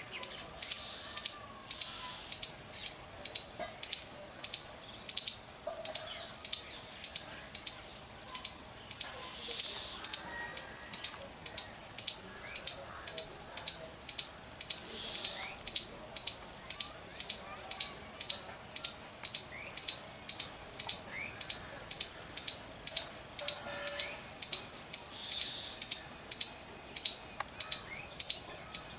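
Indian palm squirrel giving its loud, high-pitched chirping call: short sharp chips repeated very evenly, about two a second, without a break. Faint calls of other birds are heard underneath.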